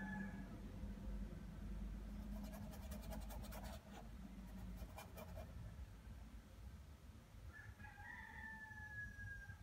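A rooster crowing near the end, one long call that falls slightly in pitch. The tail of an earlier crow sounds at the very start, and a run of faint clicks comes in the middle.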